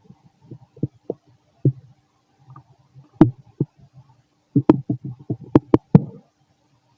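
A man's stomach and intestines growling during digestion: low gurgles broken by sharp pops. There is one loud pop about three seconds in, and a quick run of pops and gurgles from about four and a half to six seconds.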